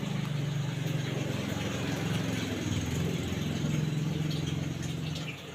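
A low, steady engine hum, like an idling motor, that stops shortly before the end.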